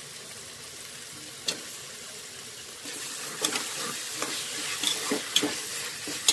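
Chopped tomatoes and onion masala sizzling in hot oil in an aluminium pressure cooker as they are stirred with a steel ladle. About halfway through the sizzle grows louder, with the ladle scraping and knocking against the pot several times.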